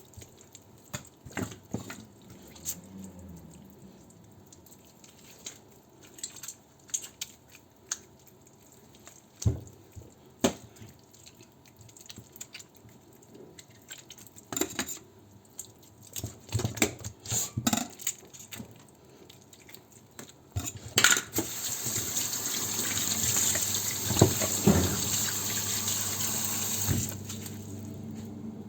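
Raw chicken pieces being washed by hand in a bowl of water: scattered splashes, drips and knocks of the pieces against the bowl, then a steady rush of running water for about six seconds near the end.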